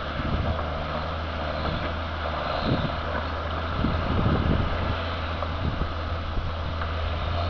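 Heavy diesel engines of earthmoving machinery (tractors, articulated dump trucks and an excavator) running together in a steady low drone, with wind buffeting the microphone now and then.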